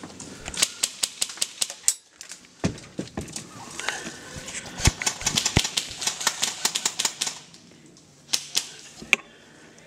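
Airsoft electric rifle firing on full auto in bursts of sharp clicking shots, about seven a second, with a few single shots in between. Near the end it goes quiet for about a second before two more single shots.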